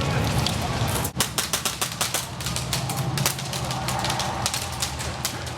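Airsoft guns firing: a rapid string of sharp clicking pops starting about a second in, then scattered single shots.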